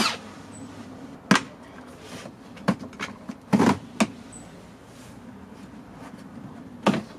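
The plastic rear diffuser of a VW Polo R-Line being pried off the bumper: its push-in clips pop loose in a series of sharp clicks and knocks, about six spread over several seconds.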